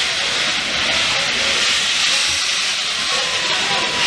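Steady, loud hiss of steam blowing from the open cylinder drain cocks of LMS Coronation class Pacific 6233 Duchess of Sutherland.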